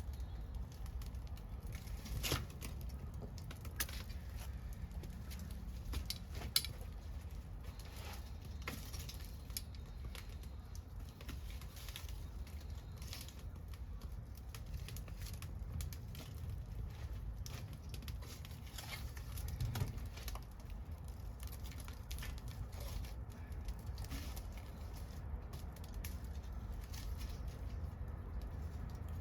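Scrap-wood fire crackling, with irregular small pops and a few sharper ones, the loudest about six and a half seconds in.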